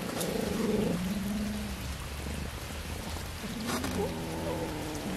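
Cats eating raw fish from a steel tray, with wet chewing and crackly smacking throughout. A cat gives a drawn-out low cry over the first two seconds and another wavering cry near the end, the sound of cats grumbling at each other over food.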